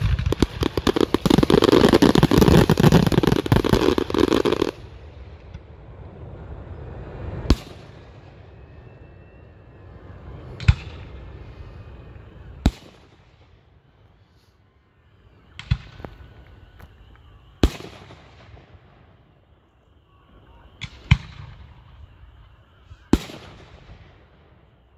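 Fireworks: a dense barrage of crackling and booming aerial shells that stops abruptly about five seconds in. It is followed by single shell bursts every two to three seconds, about seven in all, each a sharp bang with a short echoing tail.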